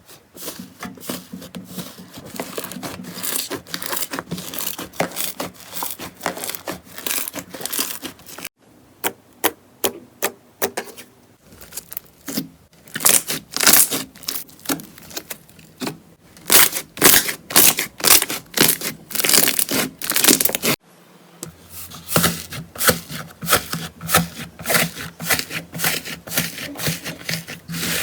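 Slime being handled: squeezed, stretched and pressed, giving dense irregular crackling and popping clicks. The sound changes abruptly twice as one clip gives way to the next.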